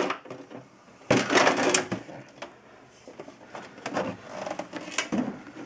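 Handling noise from an opened metal function generator chassis as it is moved to find a loose part inside: a loud scraping rush about a second in, then scattered knocks and clicks.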